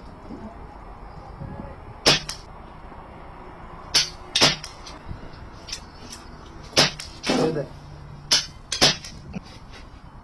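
Pre-charged pneumatic air rifles firing: about seven sharp cracks at irregular intervals, some in quick pairs.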